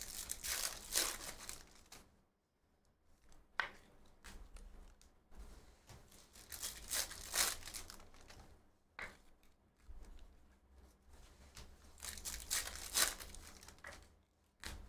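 Foil trading-card pack wrappers being torn open and crinkled, three times about six seconds apart, with a couple of sharp clicks in between.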